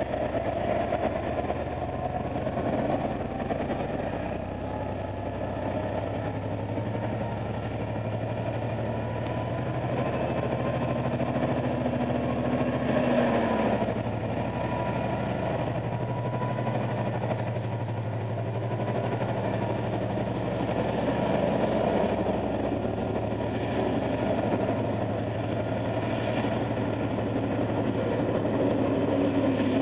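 Irish Rail 071 Class diesel locomotive's engine running steadily with a low hum, followed after a cut by another locomotive-hauled train's diesel engine.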